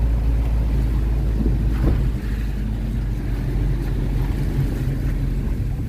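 Car engine and tyre noise inside the cabin while climbing a steep mountain road: a steady low hum with a deep rumble that eases about two seconds in.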